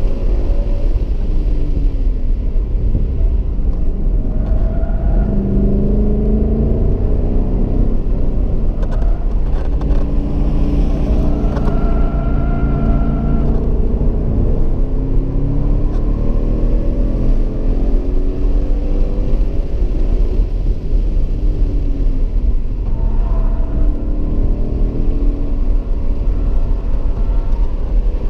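2015 Ford Mustang GT's 5.0-litre V8 heard from inside the cabin under hard track driving, with a heavy low rumble. The engine note climbs and falls in pitch several times as the car accelerates and slows through the gears.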